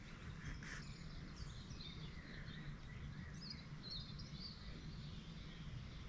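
Small birds singing, short scattered chirps and trills, over a steady low rumble.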